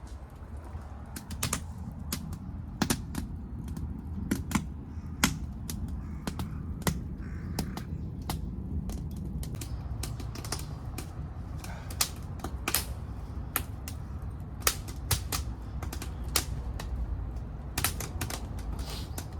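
Wood fire crackling and popping in a secondary-combustion wood stove burning broken-up old wooden furniture: irregular sharp pops over a low steady rumble of the burn.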